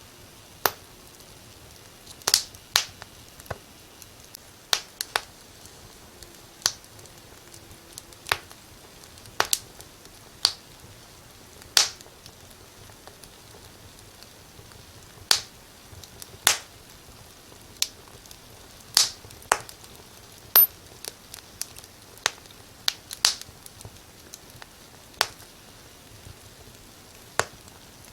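Wood fire crackling in a fireplace: sharp, irregular pops, roughly one a second, over a faint steady hiss.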